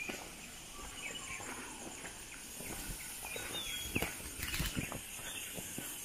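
Footsteps crunching on a gravelly dirt path, about two steps a second, with birds chirping and one short falling whistle a little past the middle, over a steady high hiss of insects.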